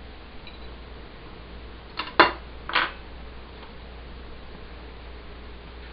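Ceramic plates clinking and knocking as they are handled and set down: a quick cluster of three knocks about two seconds in, and one more near the end, over a steady faint hiss.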